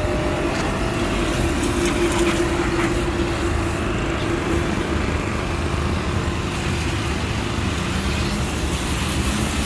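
Pressure washer running steadily, a low machine drone under the even hiss of its water jet spraying.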